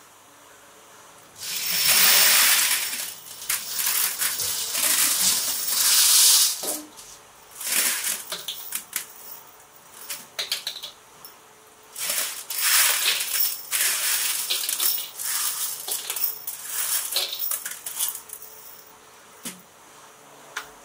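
Loose steel bolts clattering and jingling against each other as loads are emptied out of an octagonal metal barrel into plastic baskets. The clatter comes in bursts a few seconds long with short lulls between.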